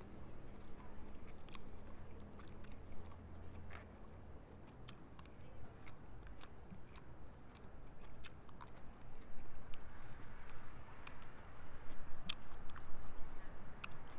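A person eating a tosilog rice bowl close to the microphone: chewing and mouth sounds, with small clicks and scrapes of the spoon in the plastic takeout bowl.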